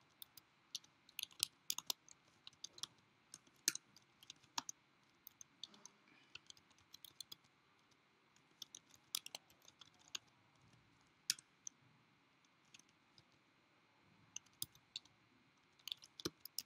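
Faint computer keyboard keystrokes typing code, coming in irregular clusters with short pauses of a second or two between them.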